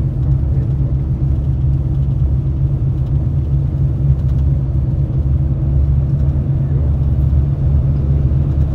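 Greyhound coach driving at highway speed, heard from inside the passenger cabin: a steady, even, low road-and-engine rumble.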